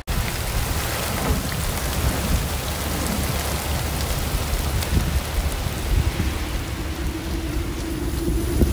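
Heavy rain pouring down, a steady hiss. A low steady hum joins in near the end.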